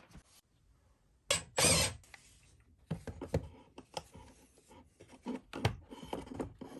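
Handling noise from objects being moved and set down: two loud scraping rubs about a second and a half in, then a run of light knocks and clicks.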